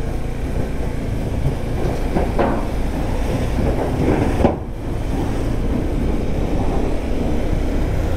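KTM 390 Adventure's single-cylinder engine running steadily while the motorcycle rides along, with wind and road noise. A brief sharp click and dip about four and a half seconds in.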